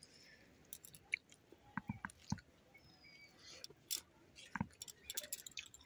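Faint chewing and scattered small wet clicks of a person eating rice and fish curry with their fingers.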